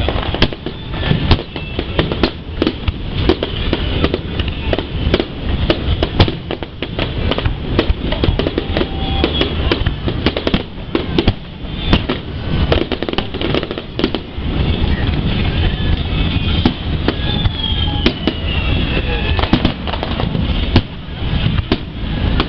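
Aerial fireworks bursting in rapid succession: a dense run of bangs and crackles over a low rumble, thinning out about two-thirds of the way through.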